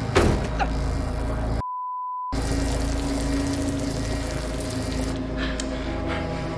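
Film soundtrack of tense background score and ambience, with a sharp knock at the start. About a second and a half in, the soundtrack cuts out for under a second and is replaced by a single steady high beep, then the score resumes.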